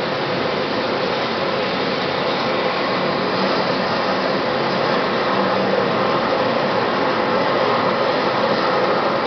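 Sikorsky HH-60J Jayhawk helicopter running on the ground, a steady even rush of turbine and rotor noise with no clear beat.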